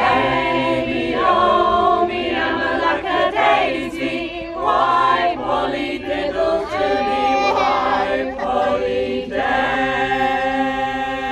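Mixed choir of men's and women's voices singing a folk song unaccompanied in harmony, the last refrain of the song, closing on a long held chord from about nine seconds in.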